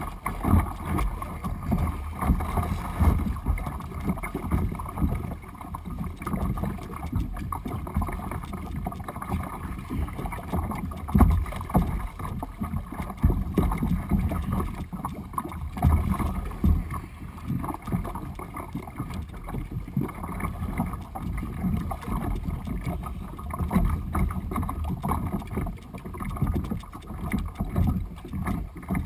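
Water splashing and rushing against the bow of a kayak moving through choppy sea, with gusty wind on the microphone.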